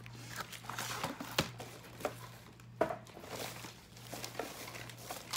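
Cardboard box and plastic bags being handled: light rustling with a few soft knocks, over a steady low hum.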